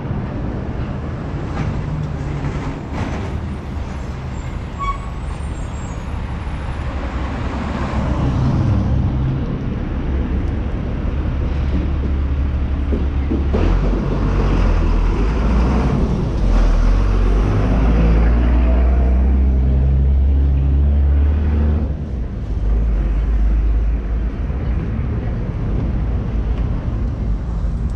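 Street traffic: vehicles passing with a steady low rumble. The rumble swells louder for several seconds from about the middle and drops away sharply about three quarters of the way through.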